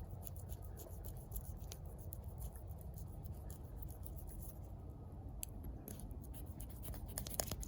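Knife cutting off the excess ends of a rubber tire-repair plug at the tread: a run of small scraping clicks, thicker toward the end, over a low hum.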